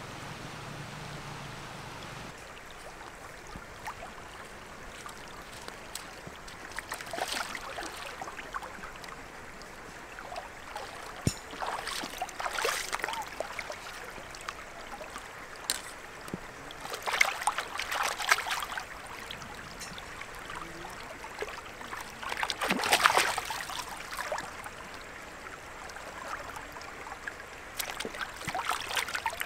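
Shallow stream trickling and gurgling over rocks, with a hand splashing in the water every few seconds while tomatoes are washed in it. For the first couple of seconds, rain patters on a river's surface instead.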